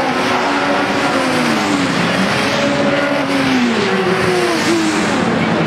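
Several sports saloon racing cars going past together at full race pace. Their engine notes overlap and rise and fall in pitch as they pass and change gear.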